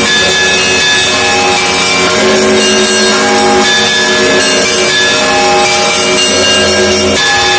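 Orthodox monastery church bells ringing a continuous festive peal: many bells of different pitches struck in quick succession, their tones overlapping and hanging on, with the mix of tones changing as fresh bells are struck.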